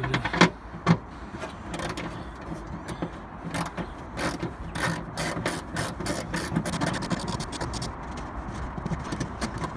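Ratchet wrench clicking in quick runs as a 10 mm bolt is undone, the clicks coming faster in the second half, with two louder knocks in the first second.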